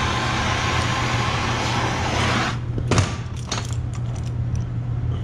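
Hand torch flame hissing steadily as it heats a stuck injector cup in a vise, cutting off abruptly about two and a half seconds in. A sharp metal clank follows about three seconds in, then a few lighter clicks of locking pliers gripping the part. A steady low hum runs underneath.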